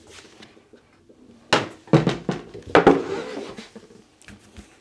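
TitanPRO white polypropylene resin folding chair being handled and unfolded: a few sharp plastic knocks and clacks of the frame between about one and a half and three seconds in.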